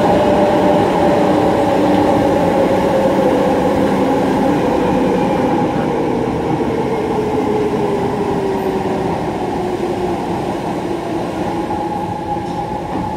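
Docklands Light Railway train running with steady wheel-on-rail rumble, heard from inside the carriage. Its motor whine falls slowly in pitch through the middle as the train slows.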